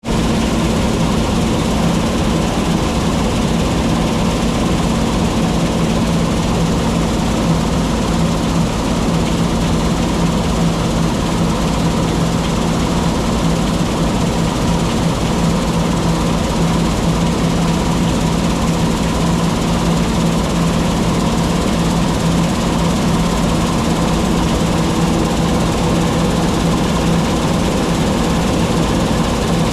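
John Deere T660 combine harvester running steadily in wheat harvest: a constant low engine hum over an even rush of machinery noise, with no change in speed.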